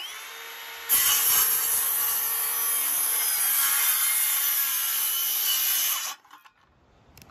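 Metabo HPT 36-volt MultiVolt cordless 7-1/4-inch circular saw spinning up with a rising whine and running free for a moment, then cutting lengthwise through a wooden board for about five seconds. Near the end the blade leaves the wood and the motor winds down.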